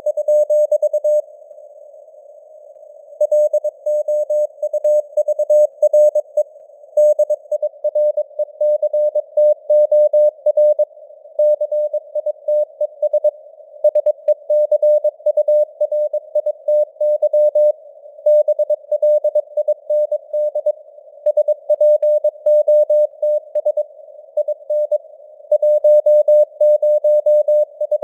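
Morse code (CW) at 22 words per minute: a single tone of roughly 600 Hz keyed on and off in dots and dashes, over a narrow band of simulated receiver hiss, its strength fading up and down (QSB). There is a pause of about two seconds between groups near the start.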